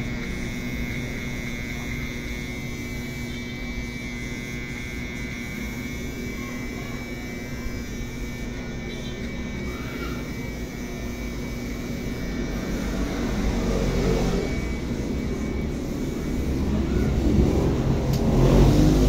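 Electric hair clippers running with a steady buzz, joined in the last few seconds by a louder rumble that swells up.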